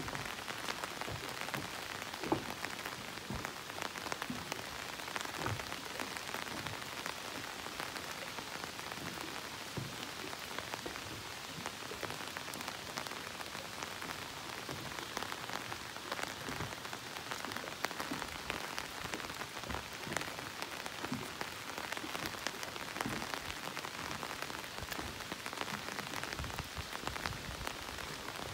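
Steady rain falling, a dense patter of many separate drops.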